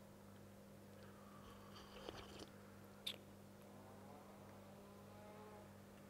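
Refrigerator humming steadily at a low pitch, with faint wavering, gliding tones, the weird noises this fridge makes. A short sharp click about three seconds in.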